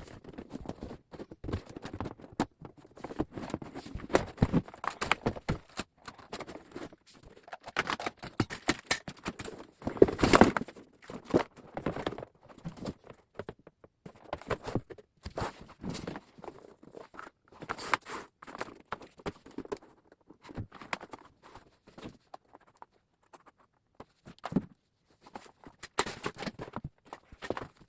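Cardboard box being handled and set up: irregular taps, scrapes and rustles of cardboard, loudest about ten seconds in and thinning out near the end.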